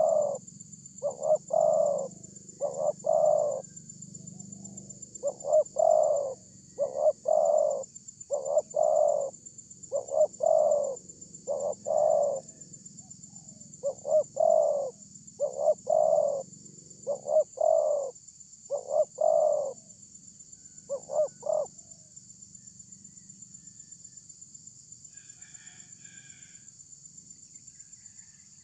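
Spotted dove cooing: short phrases of two or three coo notes, repeated every second or two for about twenty seconds, then falling silent.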